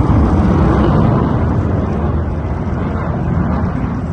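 Loud, steady jet aircraft engine noise, a dense low rumble that eases slightly toward the end.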